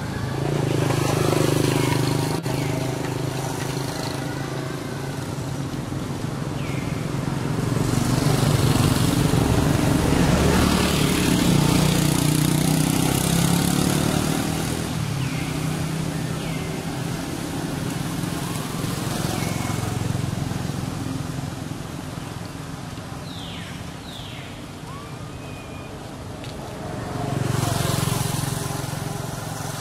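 Motor-vehicle engines passing, rising and fading three times: near the start, through the middle, and again near the end. A few short, high chirps sound over them.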